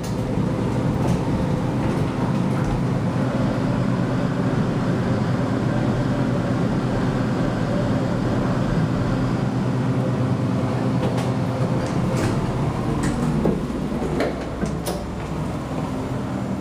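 Elevator car travelling down with a steady low rumbling hum, which eases off about thirteen seconds in as the car slows. A few sharp clicks and knocks sound near the end.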